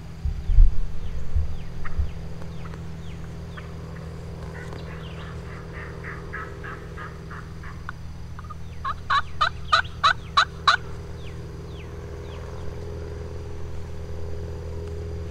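Turkey yelping: a faint, evenly spaced series of yelps, then a louder series of about seven yelps about nine seconds in. A few dull thumps at the very start, and small chirps of other birds throughout.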